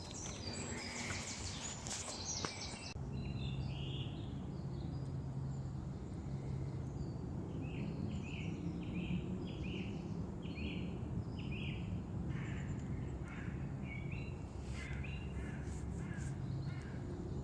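Woodland birds calling in series of short repeated notes over a steady low hum of outdoor background noise, with some rustling in the first few seconds.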